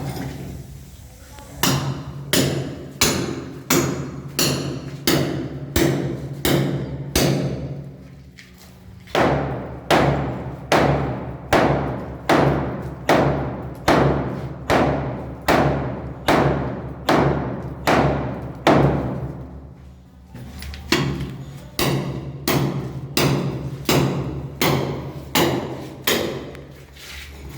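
Hammer blows striking masonry as it is broken up. The blows come steadily at about two a second, each ringing out briefly, in three long runs with short pauses between them.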